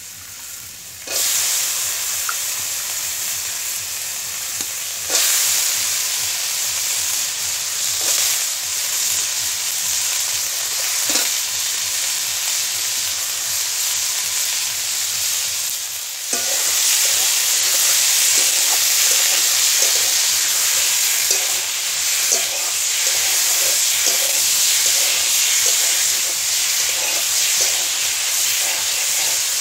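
Potato sticks and jackfruit seeds sizzling in hot oil in a metal karahi, stirred with a spatula that scrapes the pan now and then. The sizzle gets louder about a second in and again around halfway through.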